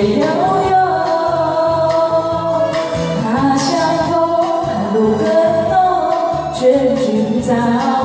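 A woman singing a Chinese-language song with long held notes over a karaoke backing track with a steady beat.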